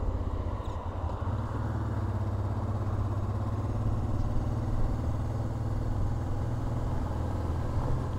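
Honda Transalp 650's V-twin engine running steadily as the motorcycle is ridden slowly through a turn.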